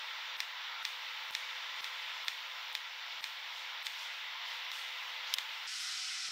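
TIG welding arc on a steel tube, hissing steadily with faint regular clicks about twice a second. Near the end it gives way to a different steady hiss.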